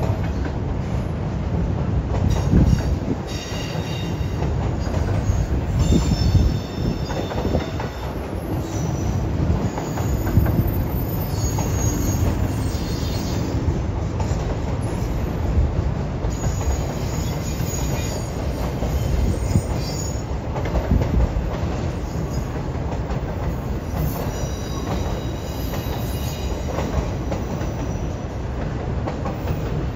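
Freight train of double-stack container cars and piggyback trailer flatcars rolling across a steel truss bridge: a steady rumble of wheels on rail with high-pitched wheel squeals coming and going several times.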